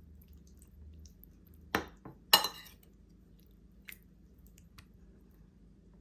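An eating utensil clinking sharply against a dish twice, about half a second apart, about two seconds in, followed by a few faint light taps.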